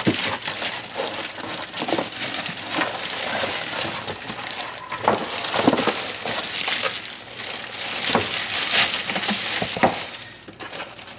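Packaging rustling and crinkling by hand, with scattered light knocks and scrapes, as a boxed ice cream maker is unpacked.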